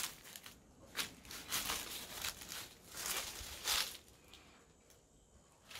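Footsteps scuffing and crunching over a gritty floor strewn with dry leaves and debris, a step about every second, stopping about four seconds in.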